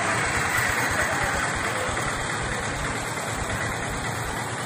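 A car engine idling over a steady hiss of street noise.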